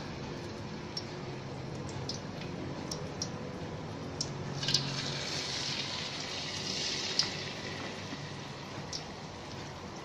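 Battered kepok banana slices deep-frying in hot oil in a wok: a steady sizzle with scattered crackles and pops, swelling louder for a few seconds about halfway through as a fresh battered slice goes into the oil.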